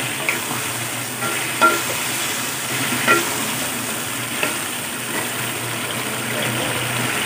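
Chicken sizzling and bubbling in thick red chilli sauce in a nonstick wok while a wooden spatula stirs it, scraping the pan now and then.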